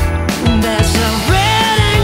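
Background music: an upbeat song with a steady beat, bass and a melody line.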